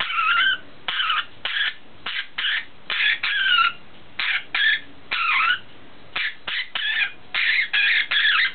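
Budgerigars chattering: a run of short, high chirps and warbles with quick up-and-down pitch glides, broken by brief pauses.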